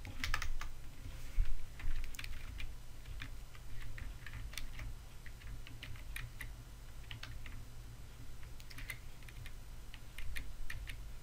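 Computer keyboard being typed on in scattered, irregular keystrokes, with a steady low hum underneath.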